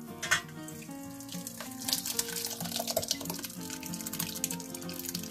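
Hot curds and whey poured from a pot into a cheesecloth-lined colander, the liquid splashing and running through in a steady rush from about a second in. A single sharp knock near the start; background music throughout.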